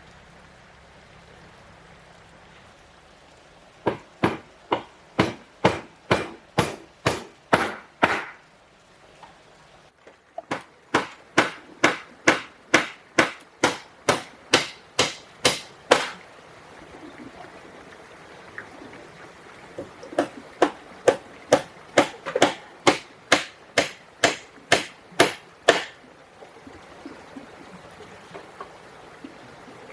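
A hand tool striking wood in three runs of sharp, even blows, about two a second: roughly ten, then thirteen, then a dozen strikes, with short pauses between the runs.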